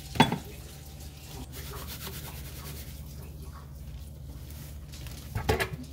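Salt pouring from a Morton iodized salt box's spout onto fish ceviche, a faint steady granular hiss over a low hum. A sharp click sounds right at the start.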